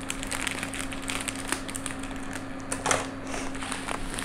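Plastic bag of wheat groats crinkling and clicking as it is handled, opened and tipped toward the pot, over a steady low hum.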